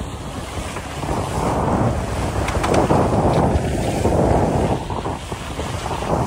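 Wind buffeting the microphone over water rushing and splashing past the hulls of a sailing catamaran under way, getting louder about a second in.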